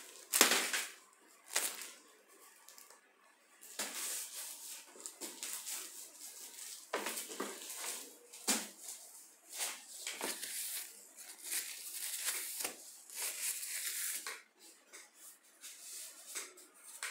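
Gloved hands handling a perfume bottle: the gloves rub and rustle against it, with clicks and light knocks as the cap is fitted back on. A sharp click just after the start is the loudest sound.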